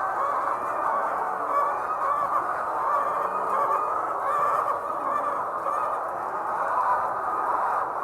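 A large flock of layer hens calling all at once, a continuous dense chatter of many overlapping clucks and squawks.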